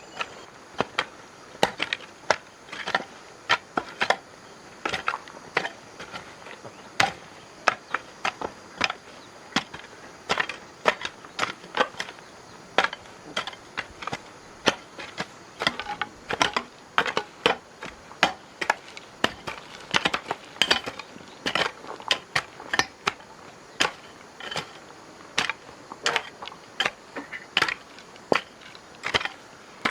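Repeated sharp knocks of tools striking wood, irregular, one to three a second and sometimes in quick runs, like hand work on timber.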